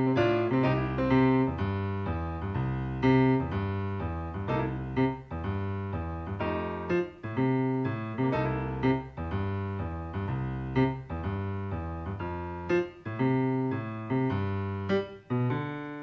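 Live jazz trio music played back from a cassette tape: a keyboard sounds chords and melody lines over bass and drums.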